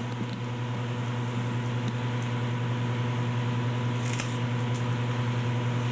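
Steady low electrical hum with a constant hiss. A brief faint high hiss comes about four seconds in.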